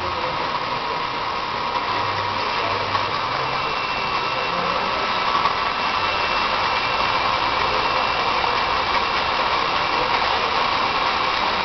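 A roller-driven machine running steadily: an even whirring hum with a faint steady whine, a little louder from about halfway.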